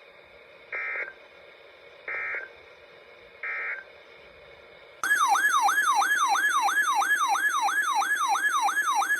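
Emergency Alert System broadcast tones: three short bursts of digital data tones, then from about halfway through a loud electronic alert tone that sweeps quickly up and down, about three times a second, marking the start of a new warning.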